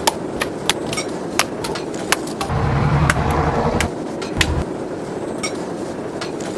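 A steel camping knife chopping into a papaya stem: a series of sharp, irregular chops. A low rumble runs for about a second and a half around the middle.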